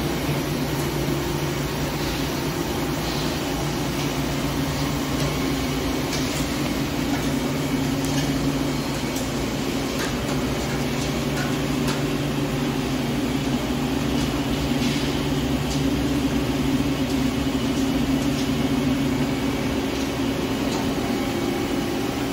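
Hankook PROTEC-9NC heavy CNC lathe running a turning cut on a steel shaft: a steady machine hum with scattered small ticks.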